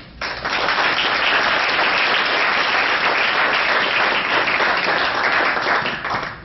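Audience applauding, starting a moment in and dying away near the end.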